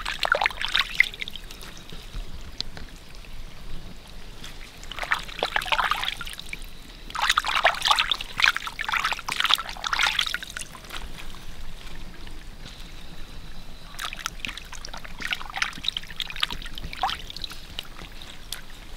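Water splashing and dribbling as raw pig intestines are dunked, squeezed and lifted out of shallow water by hand. It comes in spells, the longest and loudest about halfway through.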